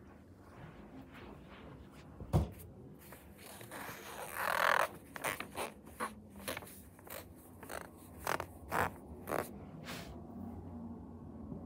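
Homemade pen scratching on paper while drawing: a knock a little over two seconds in, one longer scribble about four seconds in, then a run of about eight short, quick strokes.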